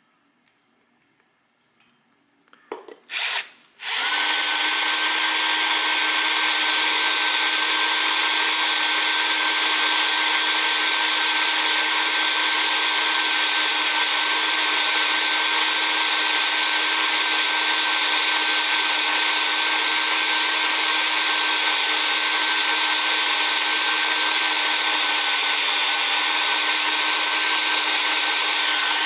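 Power drill boring out a damaged steel cylinder head bolt head with an oiled twist bit. After a near-silent start, two short trigger blips about three seconds in, then the drill runs steadily under load, cutting metal, with a constant whine.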